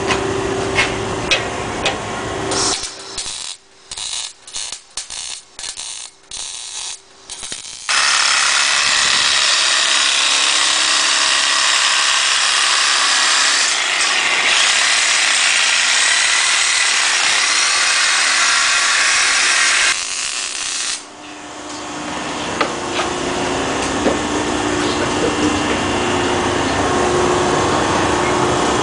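Exhaust-shop machinery at work: a steady machine hum with light clicks, then a choppy stop-start stretch, then a loud steady hiss lasting about twelve seconds. The hum comes back near the end.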